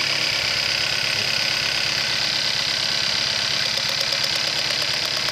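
1.6-liter four-cylinder engine of a 2012 Hyundai Accent idling unevenly with a random misfire. From about three and a half seconds in, a rapid series of faint sharp ticks joins it.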